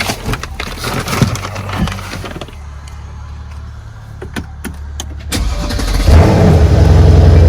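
A car engine idling with a low, steady hum, with a few sharp clicks and knocks over it. About five and a half seconds in, the engine sound gets much louder and keeps running loud and deep.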